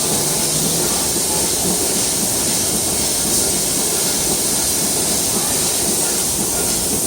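Steady hiss of running machine-shop machinery, with a constant high-pitched band on top and no change in level.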